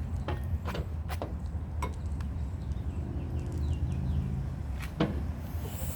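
Scattered sharp clicks and light knocks of containers being handled, a glue bottle and a mixing bowl, over a steady low hum. The loudest knock comes about five seconds in.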